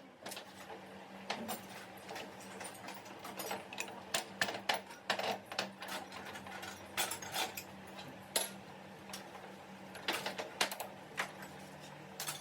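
Irregular mechanical clicking and tapping, like metal parts or tools being handled, over a steady low hum.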